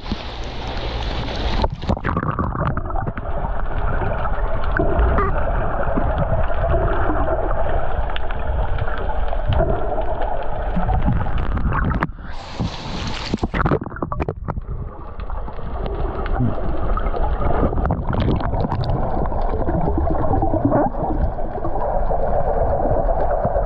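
Camera dipping in and out of the sea while snorkeling: mostly the dull, gurgling underwater noise of the submerged housing, broken twice, near the start and about halfway, by short bursts of open-air sea and splashing sound as the camera breaks the surface.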